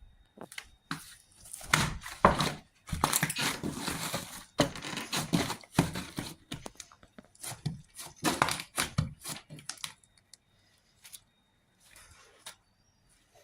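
Slime being squished and stretched by hand, with wet crackles and small pops. The sounds come in a dense run of bursts and thin out to a few faint ones after about ten seconds.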